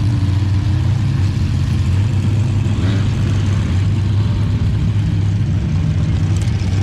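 An engine running steadily at idle: a low, even hum that neither rises nor falls.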